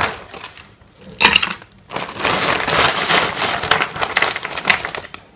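Ice cubes tipped from a plastic zip-lock bag into a glass pitcher, clattering and clinking against the glass and each other while the bag crinkles. There is a short rattle about a second in, then a longer run of tumbling ice from about two seconds in.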